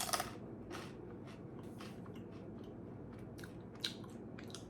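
Person biting into and chewing crunchy corn snacks: a loud crunch at the first bite, then a scattering of smaller crunches as they are chewed.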